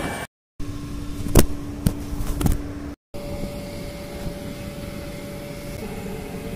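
Workshop background noise: a steady mechanical hum with three sharp knocks in the first half. The sound drops out briefly twice, and after the second break a different, higher hum carries on.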